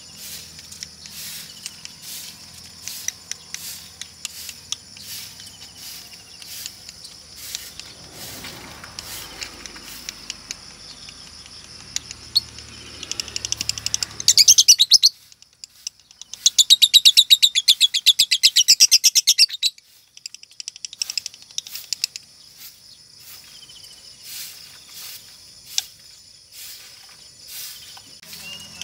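Female lovebird calling: scattered short chirps and clicks, then about halfway a loud, fast trill of rapidly repeated notes, a brief pause, and a longer rapid trill of about four seconds, before soft chirps return. The uploader presents this as the song of a 'konslet' female.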